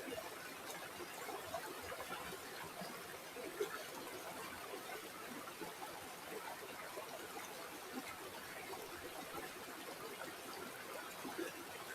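A small stream flowing and trickling over stones: a steady, fairly quiet babble with small splashes.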